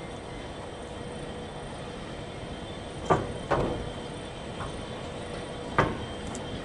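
NSW 82 class diesel locomotives running slowly at the head of a loaded wheat train, a steady low engine rumble. Three sharp metallic clunks come from the wheels crossing the points, two close together a little after the middle and one near the end.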